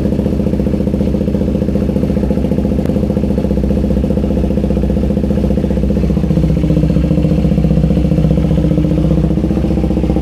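KTM 390 Duke single-cylinder engine running steadily at idle just after starting, its fuel pump freshly freed by tapping after the bike sat unused for a month. The revs pick up slightly about six seconds in, then ease back.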